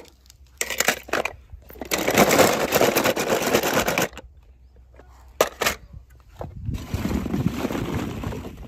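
Hollow plastic ball-pit balls and small toy cars clattering and rustling as a hand rummages through them. The rattling comes in a few stretches of a second or two, with a couple of sharp clicks between them.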